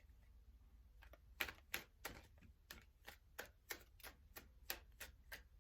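Tarot cards being shuffled by hand: a faint run of short, irregular clicks and taps, about two to three a second.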